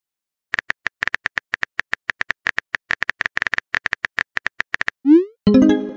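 Rapid, irregular keyboard tap clicks of a texting-story app as a message is typed, then a short rising swoosh as it is sent, followed near the end by a brief tonal chime.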